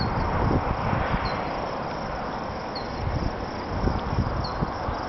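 Storm wind buffeting the microphone in uneven gusts, with a faint, short, high chirp repeating about every second and a half.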